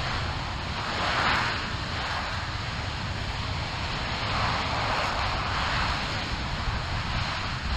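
RS-25 rocket engine firing on a test stand: a steady rush of noise over a low rumble, swelling about a second in and again around five seconds.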